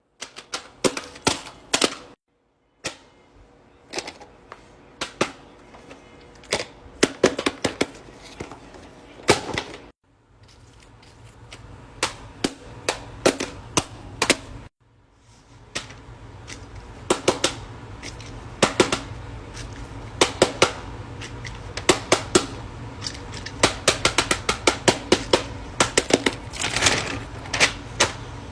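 Pop-it fidget toy bubbles being pressed, a rapid run of sharp pops and clicks in quick clusters, breaking off abruptly a few times.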